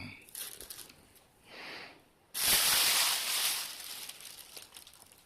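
A one-month-old baby sneezing once: a short breathy sound, then a sudden hissing burst a little over two seconds in that fades away over about a second.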